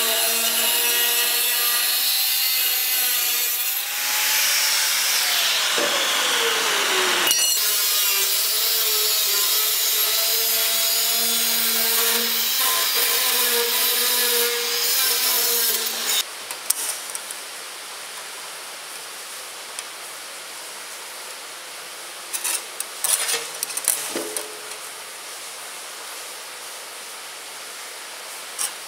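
DeWalt angle grinder with a thin cut-off disc cutting through a steel circular saw blade: a steady high motor whine with a harsh cutting hiss, its pitch sagging for a few seconds as the disc bears into the cut. It stops about halfway through, and a few light knocks and scrapes of the workpiece being handled on a steel table follow.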